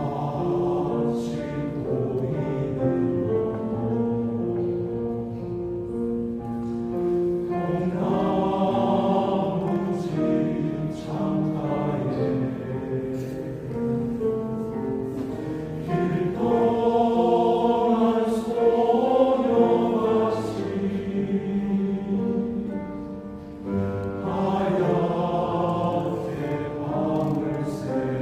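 Men's choir singing in parts, holding long notes, swelling louder for a few seconds past the middle.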